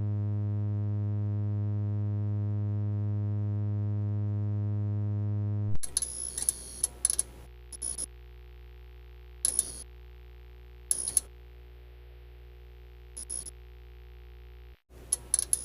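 A steady electric buzz, low and rich in overtones, that cuts off about six seconds in. It gives way to a quieter low hum broken by short, high-pitched electronic chirps and clicks at uneven intervals, with a brief break near the end before the next effect begins.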